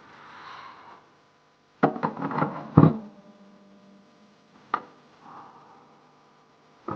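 Knocks and clatter of a refrigerator's inner panel and parts being taken out, loudest about two seconds in, with a single sharp knock near the middle and another at the end. A faint steady hum runs underneath.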